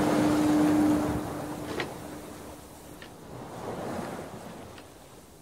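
Ocean surf and wind ambience, with a steady low tone for the first three seconds and a few faint knocks, fading away toward the end.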